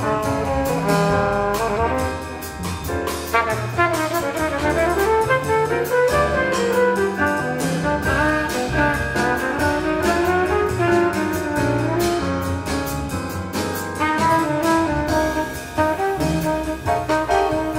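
A jazz quintet playing live: a flugelhorn carries the melodic lead, with bends in pitch, over piano, walking upright bass and a drum kit whose cymbal strokes keep the time.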